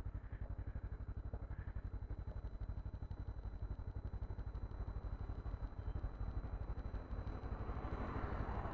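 Motorcycle engine idling steadily at a standstill, an even low throb.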